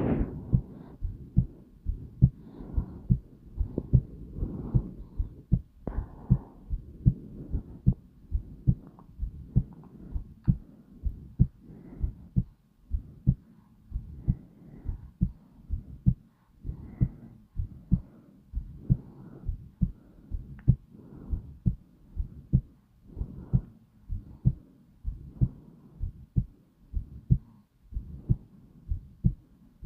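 Slow, steady heartbeat: low thumps repeating in an even rhythm, with a soft whooshing between the beats.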